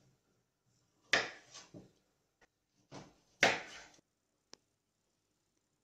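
Knife chopping vegetables on a wooden cutting board: about five separate sharp chops in two small groups, with a faint click or two between.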